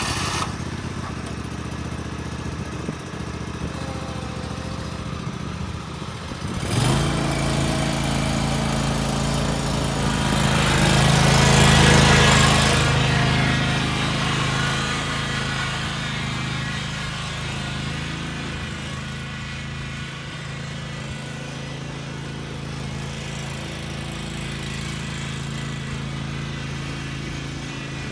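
Riding lawn mower's V-twin engine running. About seven seconds in it steps up suddenly to a louder, deeper steady hum, swells to its loudest around twelve seconds, then settles back to an even run.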